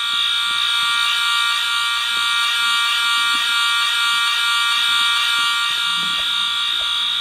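Wheelock fire alarm horns sounding continuously: a steady, unbroken high-pitched tone rich in overtones.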